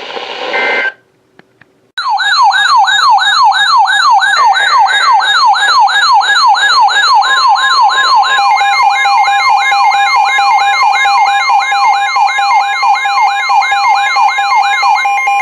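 Electronic siren wailing in fast repeating sweeps, about two to three a second, with steady tones joining underneath about halfway through. Before it, a moment of radio hiss with short tones, then a second of silence.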